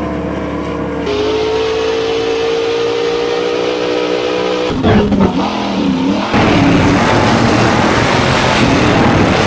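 Supercharged V8 engine of a racing jet boat running at high revs. Its steady high note dips and climbs back about halfway through, then turns louder and rougher for the last few seconds.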